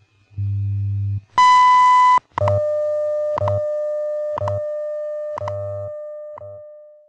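WWV shortwave time signal heard through an AM receiver: a low buzzing time-code pulse, then the 1000 Hz top-of-minute beep lasting just under a second, followed by a steady lower tone broken by a tick once a second. The tone fades out toward the end.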